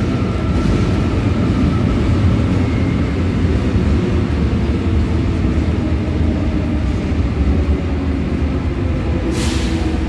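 Electric commuter train running along the platform behind the screen doors: a loud, steady rumble of wheels on rails. A short hiss comes near the end.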